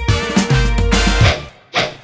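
Background music that cuts off about one and a half seconds in, followed by a single short hit near the end.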